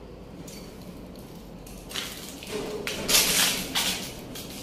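Low steady background noise, then from about two seconds in several short bursts of hissing noise, the loudest about three seconds in. The explorer thinks these noises come from the bridge outside the building.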